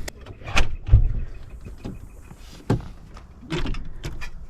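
A few separate thumps and knocks about a second apart, the loudest a low thud about a second in, typical of doors being shut and things being handled while packing up to leave.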